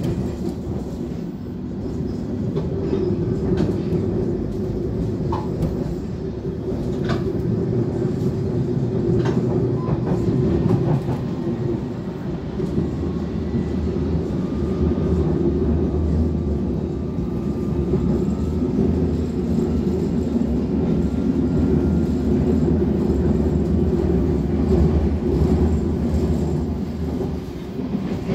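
London Underground District line S7 Stock train running, heard from inside the carriage: a steady low rumble of wheels on rails, with a few short clicks about a third of the way in and a faint whine in the middle.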